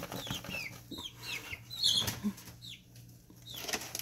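Young chickens peeping, a run of short falling peeps, over the scratchy rustle of wood shavings as the chicks dust-bathe in the bedding.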